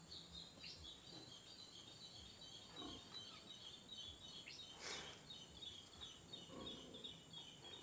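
Near silence, with a faint, fast, even chirping high in pitch running behind and a single soft click about five seconds in.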